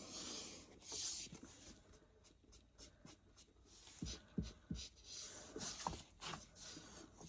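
Faint rubbing and dabbing as Walnut Stain Distress ink is worked around the edges of a wooden box, with a few soft knocks in the second half.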